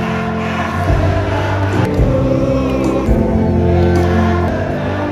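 Music with a choir-like group of voices singing over steady bass notes.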